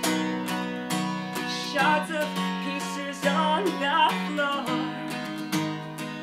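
Acoustic guitar strummed in steady chords, about two strokes a second, with a woman's voice singing a short line in the middle and the guitar carrying on alone after it.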